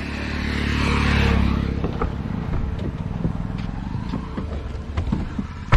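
A road vehicle passing close by on the road, its rumble swelling to a peak about a second in and fading away, then small clicks and knocks of people getting into a Suzuki hatchback, with a car door shutting in a sharp thunk right at the end.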